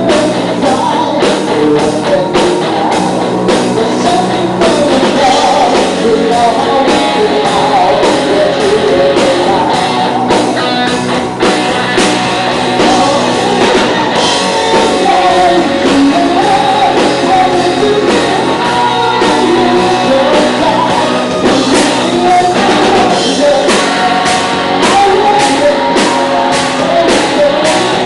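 A rock band playing live and loud: a singer over electric guitars and a drum kit.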